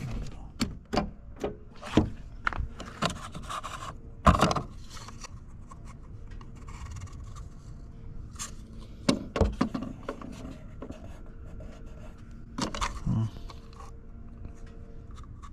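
A car's fuel filler cap being unscrewed and handled: irregular clicks and knocks with rubbing and scraping, the loudest knock about four seconds in.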